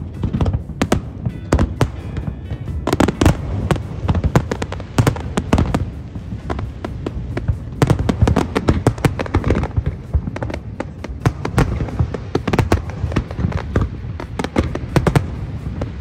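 Fireworks display: a continuous barrage of aerial shell bursts and crackling, several sharp bangs a second with no break.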